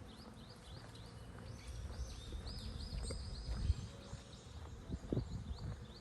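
Birds chirping in a string of short, quick rising notes, with a run of longer notes in the middle. Low thuds of footsteps on the path sound underneath.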